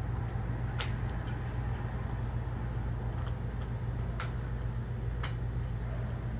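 A steady low mechanical hum with a few sharp, scattered ticks over it.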